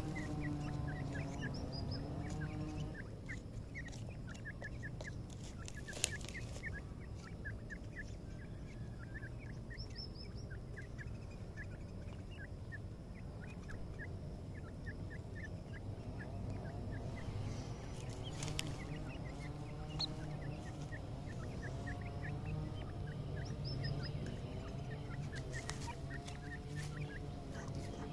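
Young francolin chicks peeping softly and repeatedly as they forage, short high calls coming several times a second, with a few sharp clicks in between.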